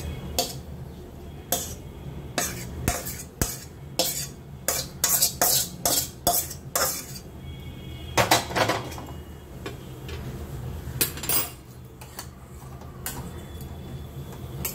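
Metal spatula scraping and clanking against a steel wok and a steel cooking pot as cooked curry is scraped out and stirred: irregular clinks and scrapes, busiest in the middle, over a steady low hum.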